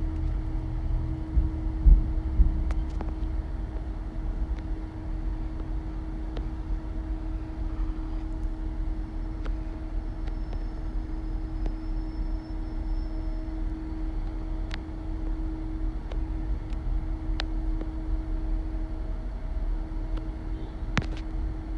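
Steady low vehicle rumble with a constant hum and scattered faint clicks, and a brief thump about two seconds in.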